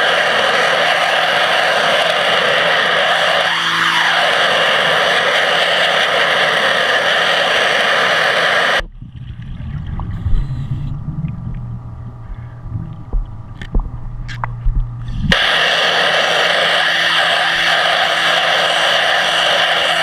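Underwater pressure-washer jet hissing loudly against a stainless steel intake screen. It cuts off about nine seconds in, leaving a low rumble with a steady hum and a few clicks, then comes back on about six seconds later.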